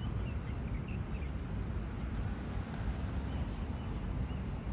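Outdoor background of a steady low rumble, with faint short bird chirps a few times over it.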